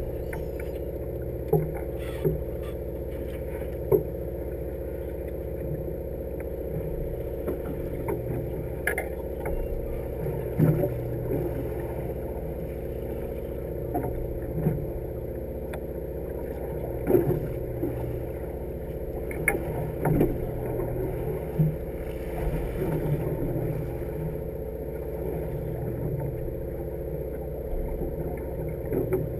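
Sportfishing boat's engine running with a steady hum, broken by scattered short knocks, about a dozen of them.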